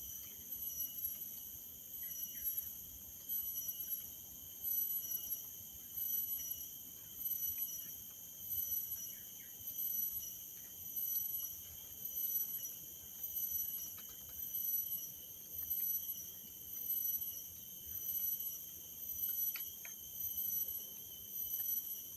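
Forest insects calling in a steady, high-pitched chorus that swells and fades in regular waves about every second and a half.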